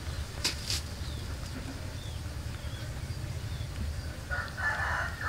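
A kitten eating from a pile of food over a steady low rumble, with two sharp clicks about half a second in and a few faint high chirps. A short, rough animal call is the loudest sound, near the end.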